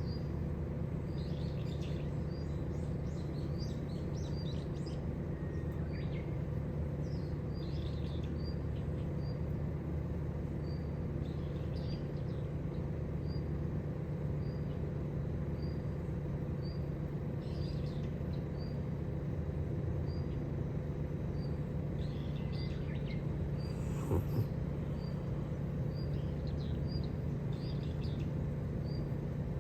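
Small wild birds chirping: one repeats a short, high chirp about once a second while others add quick clusters of chirps every few seconds, over a steady low hum of outdoor background noise. A single brief knock comes about four fifths of the way through.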